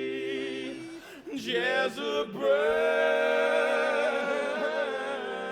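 Male barbershop quartet singing a cappella: a held chord breaks off about a second in, then a louder chord swells and is sustained with vibrato.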